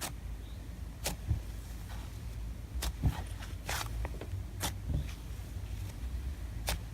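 Slime being handled and played with: irregular short clicks and pops, about seven over several seconds, over a low steady rumble.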